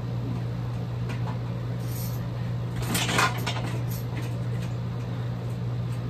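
Heavy bag struck once, hard, about three seconds in, with a few fainter knocks before and after, over a steady low hum.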